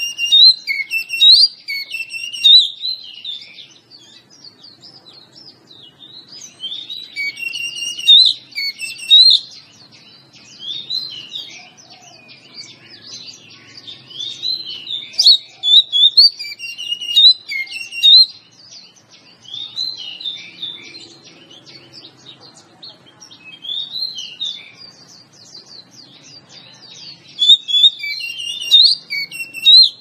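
Oriental magpie-robin singing: phrases of varied high whistles and chirps a few seconds long, repeated with short pauses between them.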